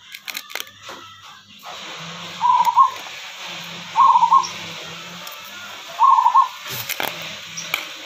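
A bird calling three times, a short warbling call repeated every couple of seconds, over a steady hiss, with a few clicks near the start and near the end.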